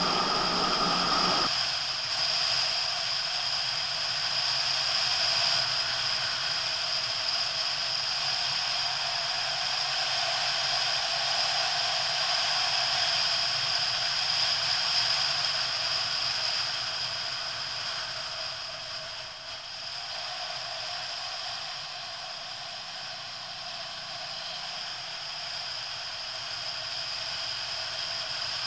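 Steady wind and road rush on a camera mounted on a moving motorcycle, with no clear engine note. A duller, lower rush changes abruptly about a second and a half in to a hissier one, which eases a little past the middle and builds again near the end.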